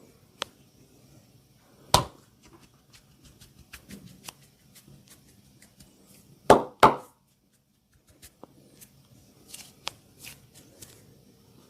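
Massage cracking sounds: sharp slaps and cracks from the masseur's hands on the body, among scattered faint ticks. One loud crack comes about two seconds in, and two loud strikes follow in quick succession about six and a half seconds in.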